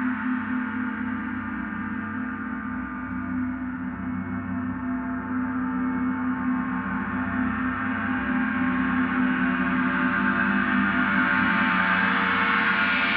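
A gong played continuously in a gong bath: a steady wash of many overlapping ringing tones with no separate strikes. It grows louder and brighter in the last few seconds.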